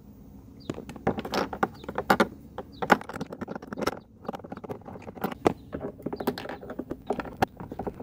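A Torx screw and its metal driver bit being fitted into the screw hole of a Mercedes ML350's plastic door panel and turned by hand. It makes an irregular run of clicks, taps and short scrapes of metal on hard plastic.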